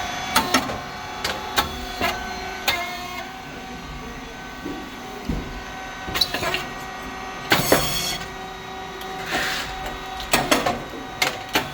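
Rice cake machine running: a steady motor and hydraulic pump hum under a string of sharp clicks and knocks from the working mechanism, with a louder hissing burst about two-thirds through.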